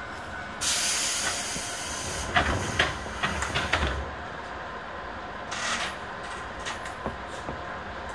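Standing electric commuter train: a loud burst of compressed-air hiss about half a second in, then a run of clunks and knocks, then a shorter hiss, over the steady hum of its onboard equipment.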